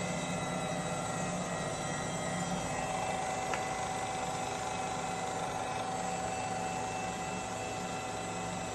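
Jones & Shipman 1077 hydraulic cylindrical grinder running steadily, its motors and hydraulic drive giving a constant hum with steady tones. A higher steady tone grows stronger about two and a half seconds in, and there is one brief click about a second later.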